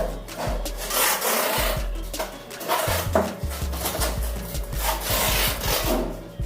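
Repeated rasping strokes of a hand tool worked back and forth over a surface during renovation work, about one stroke a second.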